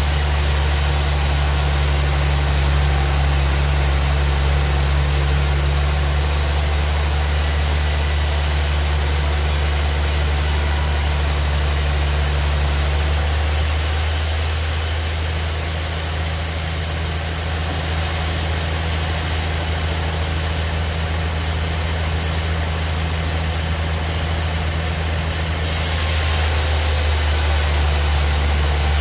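Bandsaw sawmill machinery running with a steady low hum and a hiss over it. The top of the hiss thins out about a third of the way in and returns near the end.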